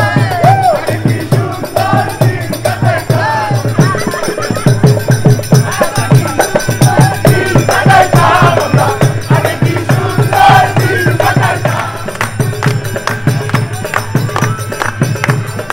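Live music: voices singing over a steady, fast percussion beat.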